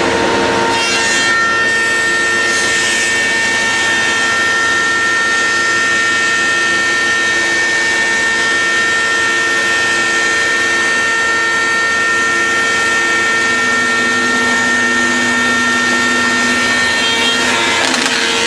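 CF 100SR multi-rip saw running and sawing wood: a loud, steady machine noise with a high whine whose tones shift about a second in and again near the end.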